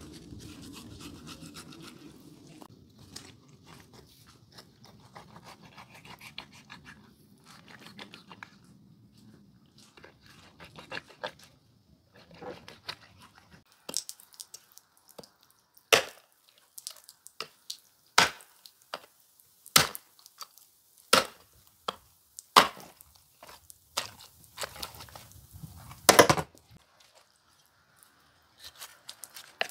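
Scraping and rubbing at first, then a run of sharp, loud chopping blows on wood, one every second or so, the heaviest coming in the second half.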